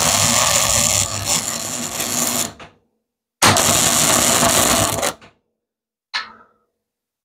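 Electric arc welder crackling while welding a fender stay onto a motorcycle frame. There are two welds, about two and a half seconds and under two seconds long, with a short pause between.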